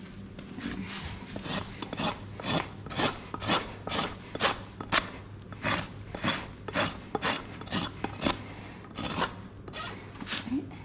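Coarse side of a hoof rasp being drawn across a Welsh pony's hoof wall in repeated scraping strokes, about two a second, taking down the thick toe. The strokes are loudest through the middle and come more unevenly near the end.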